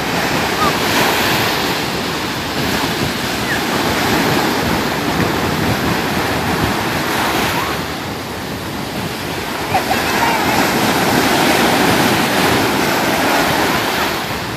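Ocean surf breaking and washing up the beach, swelling and easing as the waves come in.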